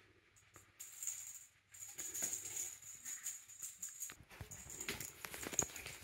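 Faint rattling and rustling of a cat clambering over a heap of futons and cushions, batting at a feather wand toy, with scattered light clicks that grow busier near the end.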